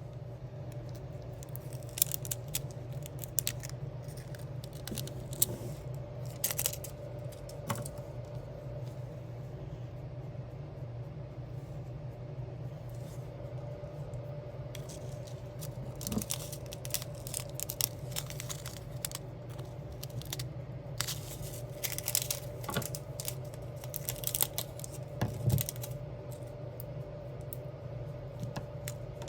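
Small irregular clicks and taps of diamond-art work: resin gems being picked up and pressed onto a sticker sheet, coming in clusters. A steady low hum runs underneath.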